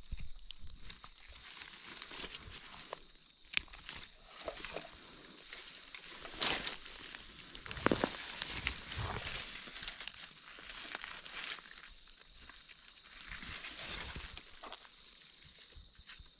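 Dry leaf litter and twigs rustling and crackling as gloved hands and a knife dig a mushroom out of the forest floor, with scattered sharp snaps and clicks.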